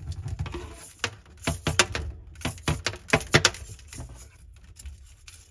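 Hands handling a plastic push-to-connect pressure regulator and its blue plastic tubing: a scatter of small clicks and rubbing sounds that thin out near the end.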